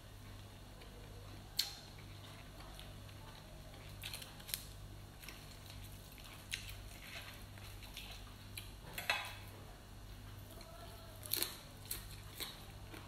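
Raw lettuce leaves crunching and crackling as they are bitten, chewed and picked from the plate by hand: short, crisp crunches every second or two, one longer crackle about nine seconds in, over a low steady hum.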